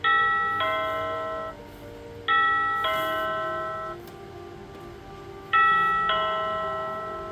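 Akuvox indoor station's doorbell notification chime: a two-note ding-dong, high note then lower, played three times, each chime ringing and fading out. It keeps sounding because the doorbell was turned on without being set up properly.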